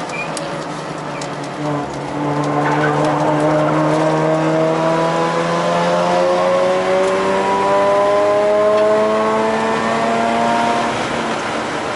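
Mazda's engine heard from inside the cabin, pulling under throttle on track. It gets louder about two seconds in, and its pitch climbs slowly and steadily for about nine seconds before fading near the end.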